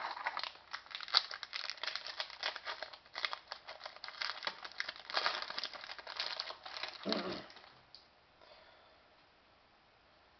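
Foil wrapper of a hockey trading-card pack crinkling and tearing as it is opened, with the cards rustling in the hands. The rapid crackling dies away about eight seconds in.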